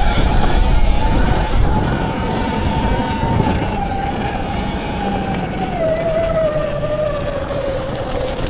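79bike Falcon Pro electric dirt bike's motor whining under way, its pitch holding high, dropping about six seconds in as it slows, then climbing again near the end, over a low rumble of tyres and wind.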